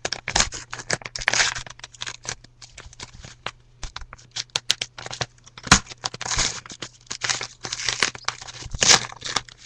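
A shipping package being opened by hand: packaging paper or plastic crinkling and tearing in irregular rustles, with scattered sharp clicks and knocks, the loudest a little past the middle.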